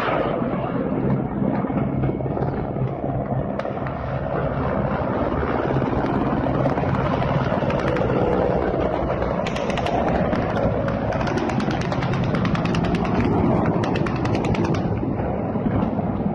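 Russian attack helicopters flying over, a steady loud rumble of rotors and turbines; from about ten seconds in, a rapid rotor chop comes through more sharply for several seconds.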